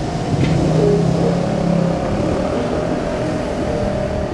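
Enoden electric train running along street-running track, a steady rumble with a thin high whine running under it, while a car drives past on the road.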